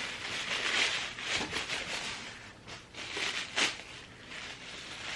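Gift wrapping and packaging crinkling and rustling as it is handled, with a few sharper crackles.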